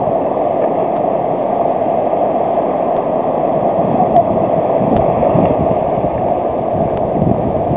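Shallow surf washing in and out over sand around a surfboard: a steady rush of foamy water.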